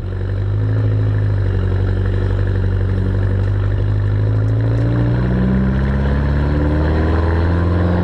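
Mini-based 1275 A-series four-cylinder engine of a Triad Mosquito three-wheeler running on its first start after a full restoration, the engine speed creeping slowly upward.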